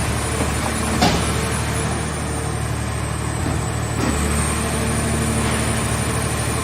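Hydraulic car-body baler running with a steady mechanical drone, with a sharp bang about a second in and a weaker knock near four seconds.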